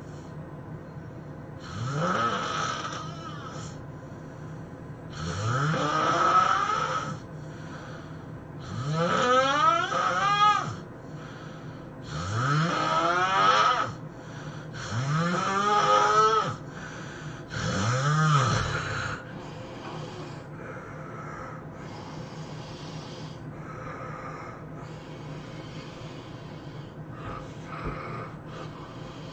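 A man snoring loudly in his sleep: six heavy snores about every three to four seconds, each rising in pitch. After about twenty seconds the snores stop and only a faint steady hum remains.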